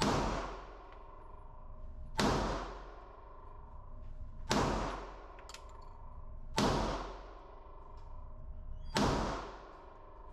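Five pistol shots from a Hi-Point handgun, fired one at a time about two seconds apart, each followed by a reverberant echo in the enclosed indoor range.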